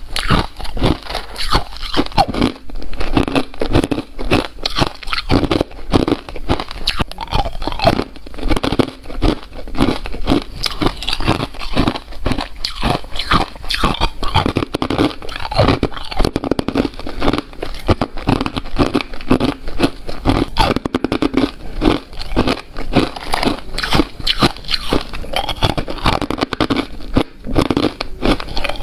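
A person biting and chewing crunchy ice: a continuous run of irregular, closely spaced crunches and cracks.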